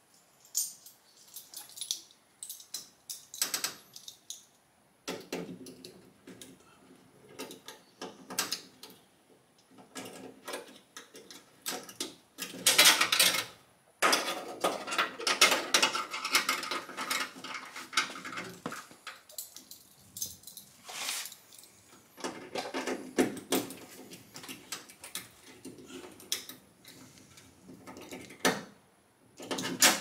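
Hand tools and small metal parts clicking, clinking and rattling irregularly as a power door lock actuator is fitted inside a car door, with a louder clatter near the middle.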